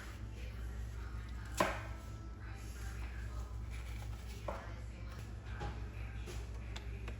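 Light knocks and taps of food preparation at a kitchen counter, with one sharper knock about a second and a half in and a few softer ones later, over a steady low hum.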